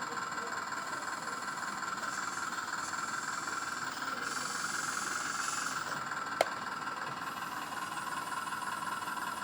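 1/14 scale RC hydraulic excavator running with a steady whine. A hiss comes in about four seconds in for a second and a half, and a single sharp click follows about six seconds in.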